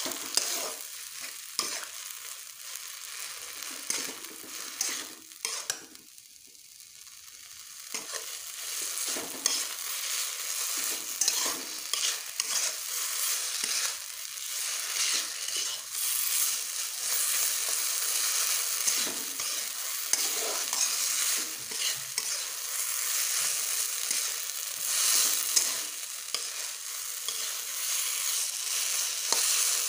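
Mashed potato, tomato and eggplant bharta frying and sizzling in oil in a kadhai, with a spatula scraping and stirring it against the pan in repeated strokes. The sizzle dips quieter for about two seconds around six seconds in.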